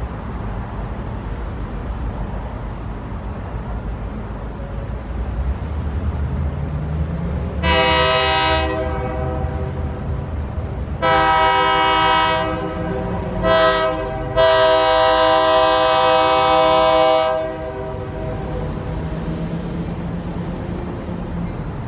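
Diesel freight locomotive's air horn sounding the grade-crossing signal: two long blasts, a short one and a final long one, over the steady rumble of the approaching locomotives.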